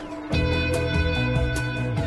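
Animated TV series' opening theme music: a rock track with electric guitar, where the full band with heavy bass comes in about a third of a second in and drives on with a steady beat.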